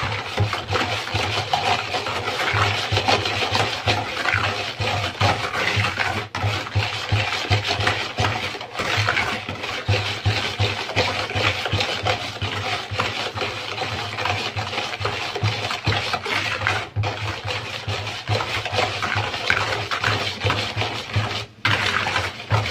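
Wire whisk beating egg yolks with sugar in a plastic bowl: continuous scraping and swishing of the wires against the bowl as the sugar is worked in to dissolve.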